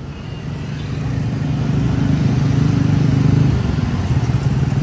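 Diesel engine of an intercity coach bus approaching and passing close by, growing louder over the first three seconds and easing off slightly after, with street traffic around it.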